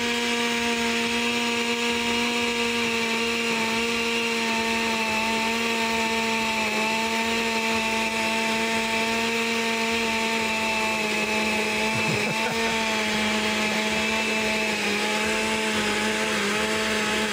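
Countertop blender motor buzzing steadily, grinding a thick batter of plantains, eggs and coconut milk as cooked chickpeas are added through the opening in the lid. The hum is even, with a few slight wavers in pitch in the second half.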